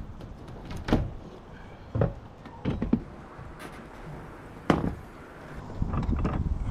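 Several sharp knocks and clunks, roughly a second apart, from work on a tin roof.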